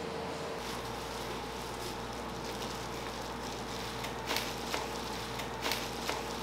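Food-prep background at a street-food stall: a steady hiss and hum, with a few sharp clicks of utensils or dishes about four to six seconds in.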